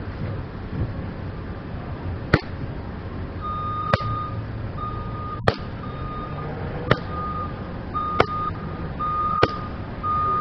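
Six sharp smacks of hand strikes landing, about one every one and a half seconds. Over a steady low vehicle rumble, a reversing alarm starts beeping at one high pitch about three and a half seconds in.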